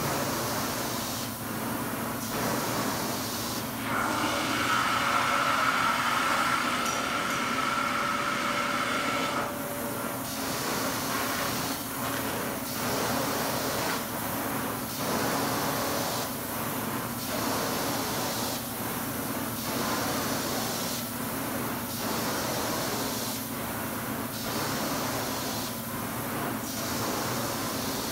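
Hot water extraction carpet-cleaning wand pulling suction across carpet: a steady hiss that dips briefly every two seconds or so as each stroke ends. About four seconds in, a high whistle rides on the suction for around five seconds.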